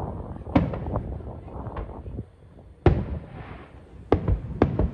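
Aerial fireworks shells bursting: a sharp bang about half a second in, another near three seconds, and a quick pair near the end, each followed by a rumbling echo, with smaller pops between.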